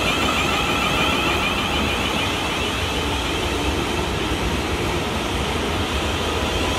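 South Western Railway Class 450 Desiro electric multiple unit moving off, its traction equipment giving a steady high electronic whine of repeating rising tones over the low rumble of wheels on the rails.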